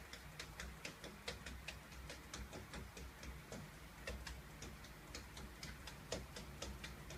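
Faint, light clicks, several a second with uneven spacing, over a low steady hum.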